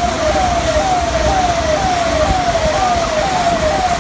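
Electronic siren sounding a repeating falling tone, about two short sweeps a second, over a steady wash of background noise.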